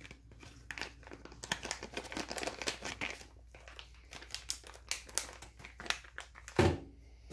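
Clear plastic zip bag of shotgun shells crinkling as it is handled, a run of quick irregular crackles and clicks.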